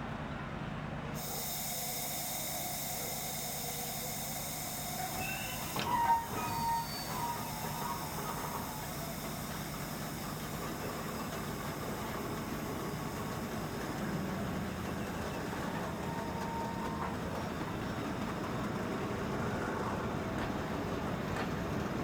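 Tourist train pulling into a station: a steady low rumble with a hiss, a sharp loud squeal with a knock about six seconds in, and a shorter squeal of wheels or brakes later on.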